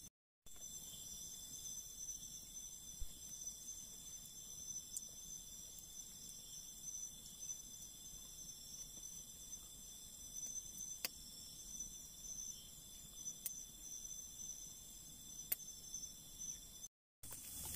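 Crickets trilling in a steady night chorus, with a few sharp crackles from a small campfire's embers. The sound cuts out briefly just after the start and again near the end.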